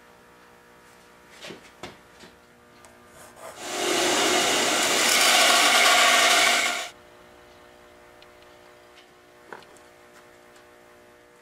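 Floor-standing bandsaw cutting through a small block of wood, the cut starting about three and a half seconds in and stopping abruptly about three seconds later. A few light knocks of the wood being handled come before the cut.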